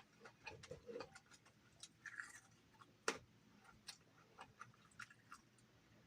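Faint close chewing of crispy food: scattered soft crunches and mouth clicks, the sharpest about three seconds in.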